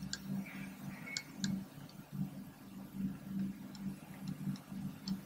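Faint, irregularly spaced light clicks and taps of a stylus writing on a pen tablet, over a low background hum.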